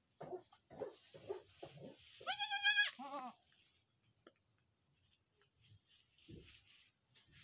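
Newborn goat kid bleating once, loud, high and wavering, about two and a half seconds in, followed at once by a short lower bleat. Soft low goat calls come before it, and goats rustle in straw.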